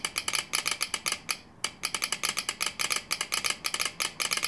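Telegraph key and sounder clicking out Morse code by hand: a fast, uneven run of sharp clicks, the rhythm of a telegram being sent, with a short pause about a second and a half in.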